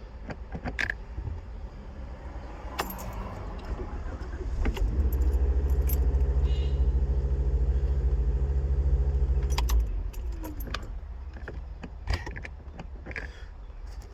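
Car keys jangling and clicking against the ignition. From about five to ten seconds in, a loud, steady, low motor hum runs, then stops and winds down with a falling pitch.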